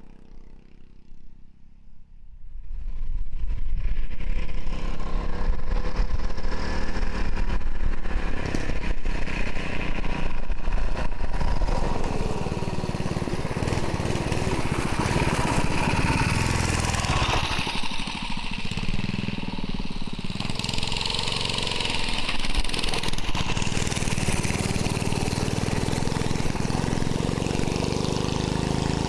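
Briggs & Stratton single-cylinder engine of a vintage Fox Sprite minibike running, starting faint and becoming loud about two and a half seconds in, with a steady engine note that slowly rises in pitch near the end.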